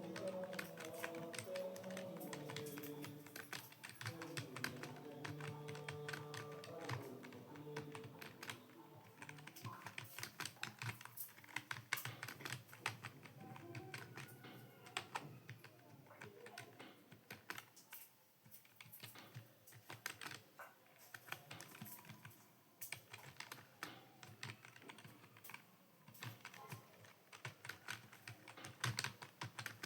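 Fast, continuous typing on a computer keyboard: a dense, irregular patter of key clicks. Music with held notes plays under the clicks for roughly the first nine seconds.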